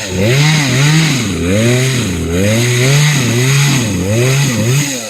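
Gas chainsaw running hard, its engine pitch swinging up and down over and over as it is throttled and loaded in the cut. It drops to a quieter, steady note at the very end.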